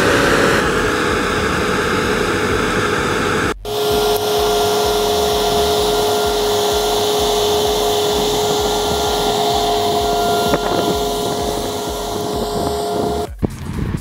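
New Holland CR-series combine harvester running while harvesting: a steady din of engine and threshing machinery with a steady high whine at two pitches. A brief dropout about three and a half seconds in cuts one stretch from the next.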